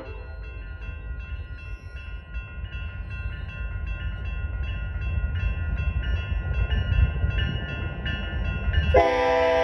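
Electronic railroad crossing bells dinging about twice a second over a low rumble that grows louder. About nine seconds in, the approaching Union Pacific locomotive's air horn sounds loudly.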